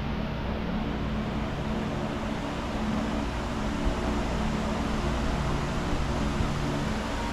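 Steady machinery hum: a constant low drone with a few unchanging tones under an even rush of air-like noise.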